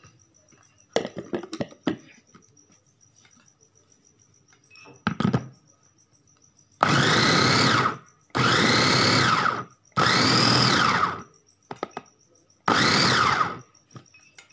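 Electric food chopper pulsed four times, about a second each, coarsely chopping coriander, green chillies, tomato and onion; each burst whines up in pitch as the motor spins up and falls away as it stops. A few knocks and clicks come first as the lid and motor head are set on.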